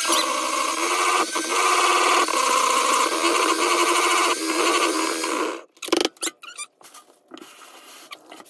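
Electric hand mixer running steadily, its beaters whipping cake batter in a bowl, then switched off about five and a half seconds in. A few light clicks and knocks follow.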